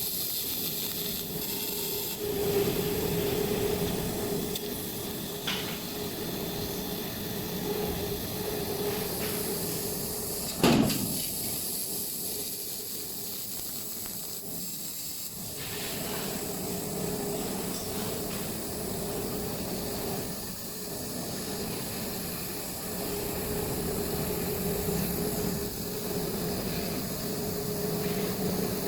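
Table fiber laser cutting machine at work: a steady hiss over a constant hum. About ten seconds in, one short whoosh sweeps down in pitch.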